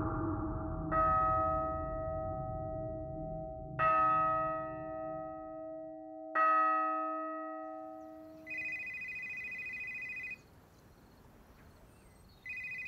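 Three slow bell strokes, each ringing out and fading. Then a phone rings with a trilling electronic double tone, a burst of about two seconds, and starts ringing again near the end.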